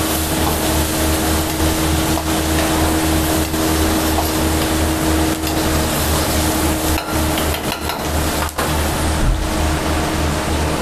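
Paneer cubes frying in a wok over a high gas flame, a steady loud rush of noise with a low hum under it, while a ladle stirs the cubes and knocks against the wok several times.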